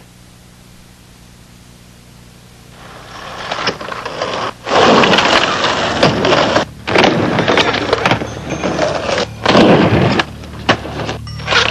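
Skateboard wheels rolling and scraping on concrete and ramp surfaces, heard as a loud rough rushing noise that stops and starts abruptly several times, after about three seconds of faint low hum.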